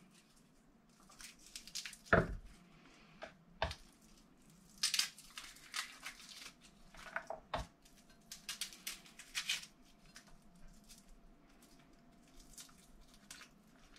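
Garlic cloves being peeled by hand: papery skins crackling and tearing in short rustles, with a few sharp taps, the loudest about two seconds in.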